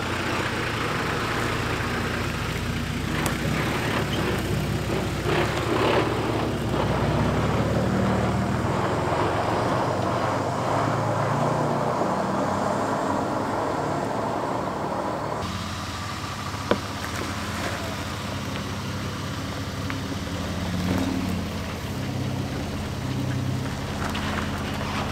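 Four-wheel drives moving slowly along a rough gravel track, engines running at low revs, with a LandCruiser towing a camper trailer coming past close by near the end. A single sharp click about two-thirds of the way through.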